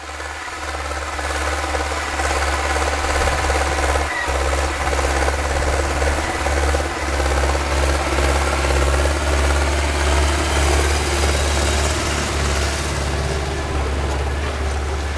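Zetor 7711 Turbo tractor's four-cylinder turbo diesel running steadily under load while pulling a disc harrow through a fallow field. The sound rises over the first two seconds, then holds.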